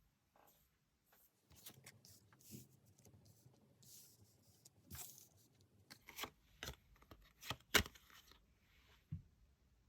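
Tarot cards being handled by hand: paper rustling and sliding, with several sharp taps as cards are set down or squared, the loudest a little under two seconds before the end.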